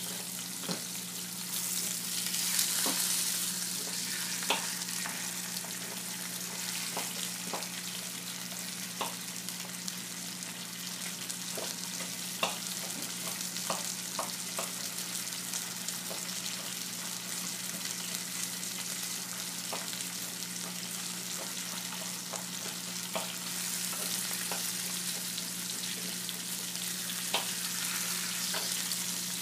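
Food sizzling as it fries in a pan, the sizzle swelling louder twice, with scattered short clinks of utensils against cookware and a steady low hum underneath.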